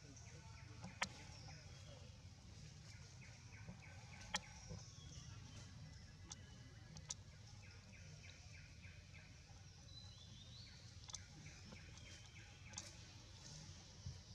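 Faint forest ambience: quick trains of high chirping from small wildlife, a few sharp clicks, and a steady low hum underneath.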